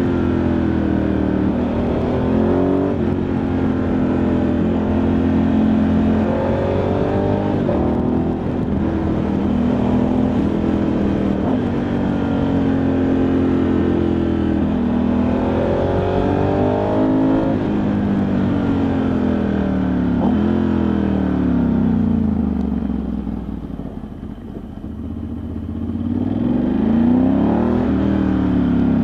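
Ducati Multistrada 1100S air-cooled L-twin engine running under way, its revs rising and falling through gear changes. Near the end it drops to low revs and quietens, then revs up again.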